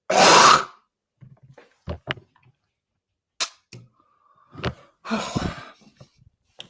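A short, loud burp at the start, followed by a few faint clicks and a softer, brief sound about five seconds in.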